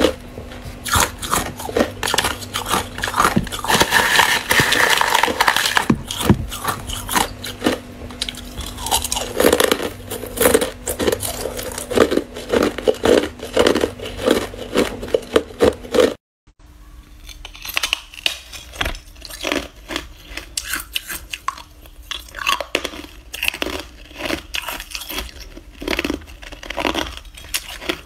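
Hard ice being bitten and chewed close to the microphone: many crisp cracks and crunches in quick succession. About two-thirds of the way through it cuts out suddenly, then the crunching resumes a little quieter.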